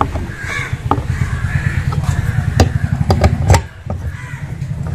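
Crows cawing several times over a steady low rumble, with a few sharp clicks and taps of metal parts being handled, a cluster of them about three seconds in.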